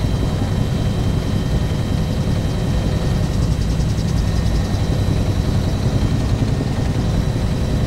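Helicopter in flight, heard from inside the cabin: a steady, loud rotor and engine drone, with a faint steady high whine above it.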